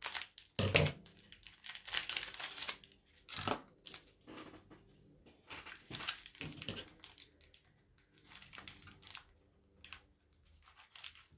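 Packaging of pom-pom trim crinkling and tearing as it is opened by hand, in irregular bursts, with a couple of louder knocks from handling.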